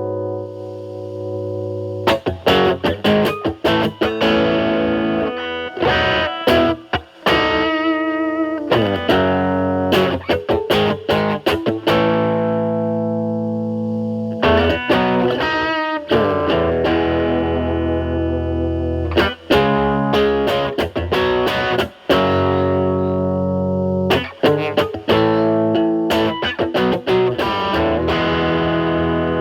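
Distorted electric guitar: a Telecaster's single-coil pickups through a Fender Pugilist dual-gain distortion pedal in series mode, Gain A at 12 o'clock, into a Marshall Valvestate amp's clean channel. The playing mixes held ringing chords with quick runs of picked notes.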